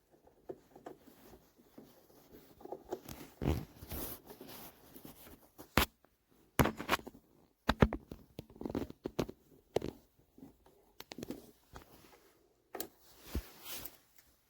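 Handling noises: irregular rustling and light taps, with several sharper clicks about six, seven to eight, ten and thirteen seconds in.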